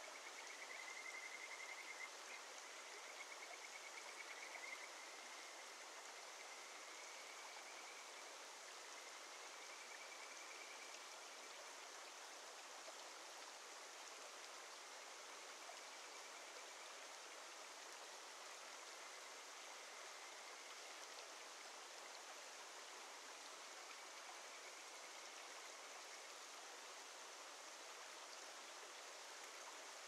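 Mountain stream flowing steadily, with a Kajika frog (Buergeria buergeri) giving a series of rapid, high trilled calls during the first dozen seconds, then fainter calls now and then.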